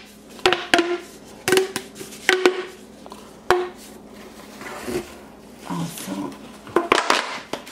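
Plastic pop tubes being stretched and bent, their corrugated ridges snapping open with sharp pops that each ring briefly, at irregular intervals and in a quicker cluster near the end. Shredded paper Easter grass rustles as a tube is pushed into the basket.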